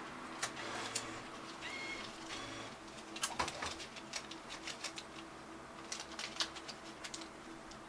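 Scattered clicks and rustles of banknotes being handled at a ticket machine's note slot, loudest about three and a half seconds in. Pigeons coo faintly behind them, with a short chirp about two seconds in.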